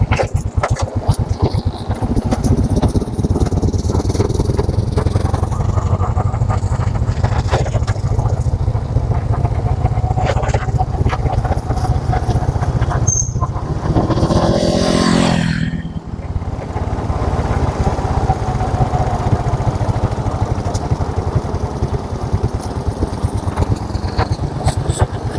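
Motorcycle engine running steadily while riding over a rough road, with frequent knocks and rattles. About halfway through, a louder engine note rises for a couple of seconds, then cuts off suddenly.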